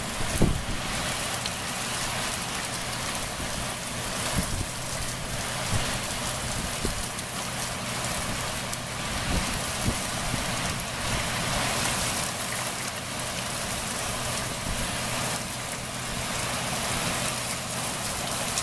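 Steady rain pouring down during a thunderstorm, with occasional sharper drop impacts close by.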